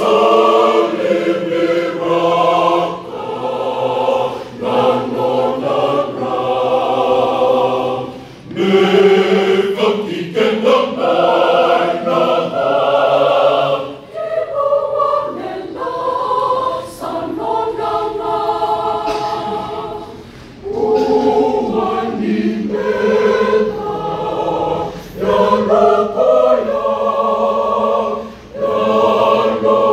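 Mixed choir of men's and women's voices singing a hymn in harmony, in long phrases with brief breaths between them.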